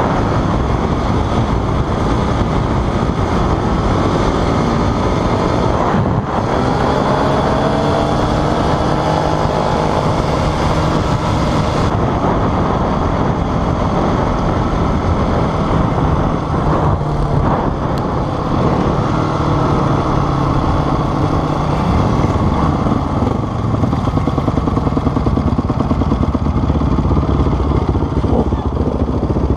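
Enduro motorcycle engine running at road speed, heard from on the bike with wind rush. Its pitch rises as it pulls through the gears, then eases off near the end as the bike slows.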